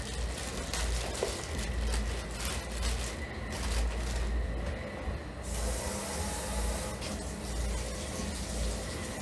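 Water running from a kitchen tap in spurts, with clear plastic produce bags crinkling as they are handled; a steadier hiss of water comes about five and a half seconds in and lasts about a second and a half.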